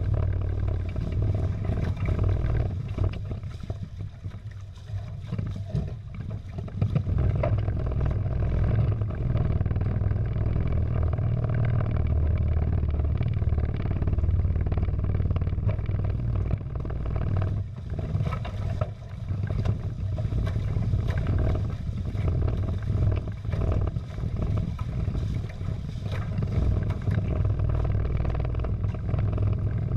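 Wind buffeting the microphone as a steady low rumble, with water rushing and splashing along the hulls of a Prindle 16 catamaran under sail. The rumble eases briefly a few seconds in.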